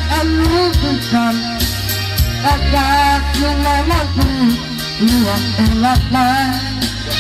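A man singing a slow, melodious vocal line into a handheld microphone, holding and sliding between notes, over amplified backing music with a deep bass line that changes note every second or two.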